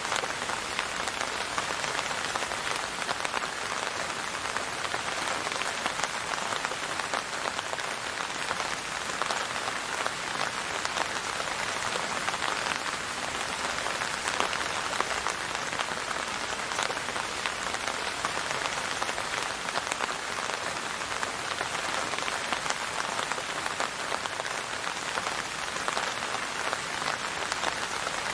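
Steady rain falling: an even, unbroken hiss made of countless small drop ticks, with no change in strength.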